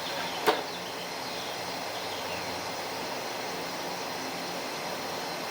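Steady outdoor background noise with a single sharp click about half a second in.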